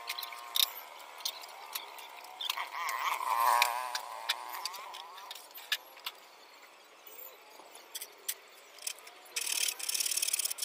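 Clear plastic greenhouse sheeting crinkling, with scattered sharp clicks as it is handled and settles on the ground. A short warbling tone comes about three seconds in, and a rapid high buzz starts near the end.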